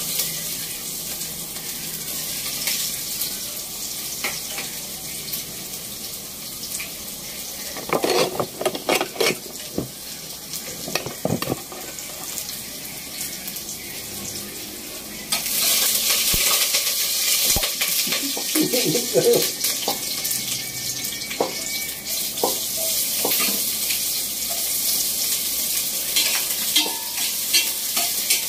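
Oil sizzling in a pot with a few small pieces frying in it, the sizzle growing louder about halfway through. A metal spoon clatters and scrapes against the pot in short bursts, stirring.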